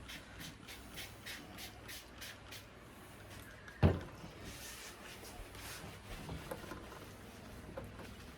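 Quick repeated sprays of Armor All protectant onto a mini bike tyre, about three short hisses a second, then a single sharp knock about four seconds in, followed by fainter rubbing.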